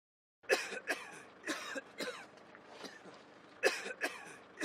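A person coughing in fits: four coughs about half a second apart, a pause with one weaker cough, then another pair of coughs near the end. The coughing starts abruptly out of dead silence about half a second in.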